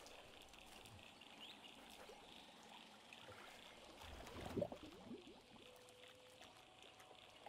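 Faint night-time swamp ambience: a steady high-pitched insect chorus, and about four and a half seconds in a short burst of bubbling, gurgling water as something stirs just below the surface.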